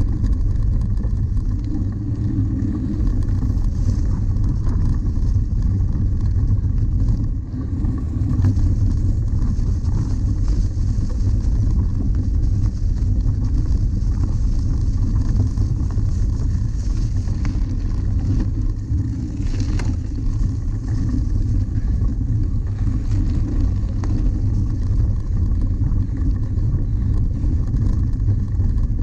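Steady low rumble of a cyclocross bike riding fast over bumpy, frozen grass and dirt, picked up by a camera mounted on the bike, with wind on the microphone and an occasional knock from a bump.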